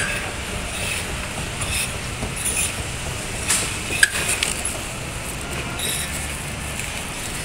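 1997 ThyssenKrupp inclined moving walkway running, its pallets and drive giving a steady rumble, with a sharp click at the start, another about four seconds in, and a few fainter clicks between.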